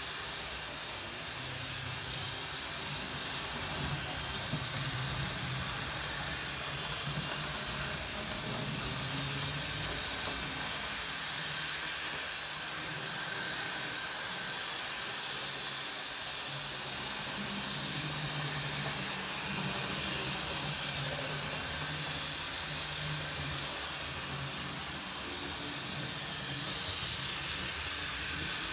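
Bachmann model 4-4-0 steam locomotives running on track, their motors and gearing making a steady mechanical running noise with a low hum that wavers in pitch.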